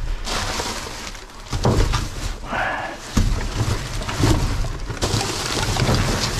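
Rubbish being handled and shifted in a dumpster: rustling with irregular knocks and clatters.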